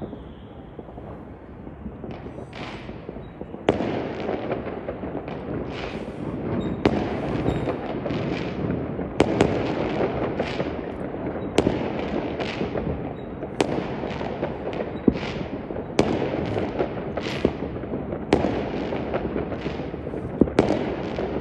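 New Year's Eve fireworks display. Fairly quiet for the first few seconds, then from about four seconds in a steady run of sharp aerial shell bursts, one every second or two, over a constant din of smaller bursts.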